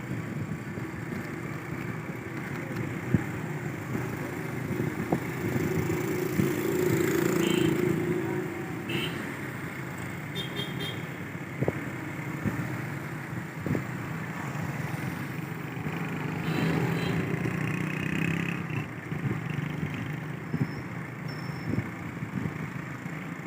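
Busy street traffic: motor vehicle engines running, with a few short high beeps such as horns along the way.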